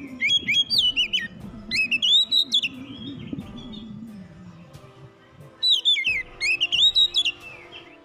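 Oriental magpie-robin singing loud, whistled phrases of sliding notes in three bursts, with a pause in the middle, over soft background music.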